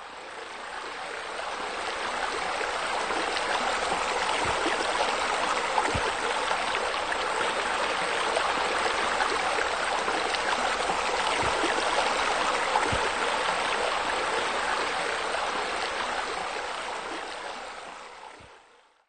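Water spilling steadily from a pool's raised-wall water feature into the pool, a constant splashing that fades in at the start and fades out near the end, with a few faint low knocks.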